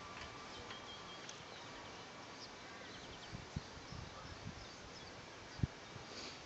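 Quiet open-air ambience with faint chirps of small birds now and then, and a few soft low thumps, the sharpest about five and a half seconds in.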